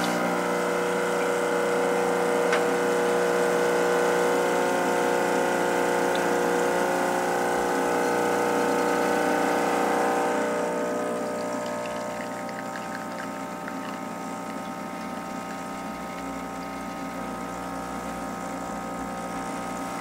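Expobar Office Lever espresso machine's vibratory pump running steadily during a shot, a hum made of several steady tones. It eases off and runs quieter from about ten seconds in.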